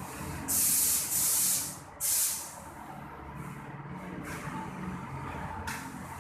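Paint spray gun hissing in three short bursts, each about half a second long, over a steady low hum.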